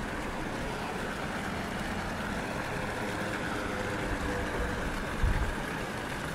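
City street traffic: a motor vehicle's engine running steadily close by, with a brief low thump about five seconds in.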